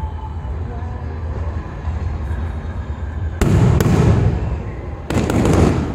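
Fireworks going off: two loud shell bursts about a second and a half apart, each a sudden bang trailing into a short crackling rumble, over a steady low background rumble.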